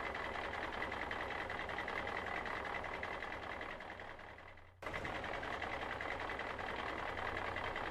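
Construction vehicle's engine running steadily. It fades out a little under five seconds in and another engine starts suddenly in its place.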